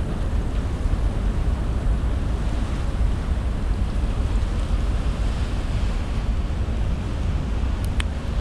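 Steady low rumble aboard a ferry as it docks, with wind buffeting the microphone and a sharp click near the end.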